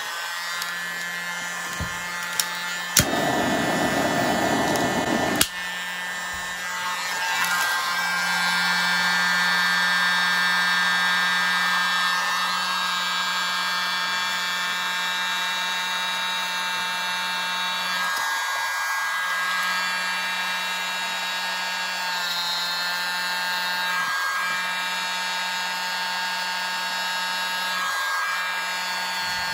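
Small electric mini blower running steadily with a hum and a high whine, blowing air onto wet acrylic paint to push it open into a bloom. There is a louder rush of air for about two seconds near the start.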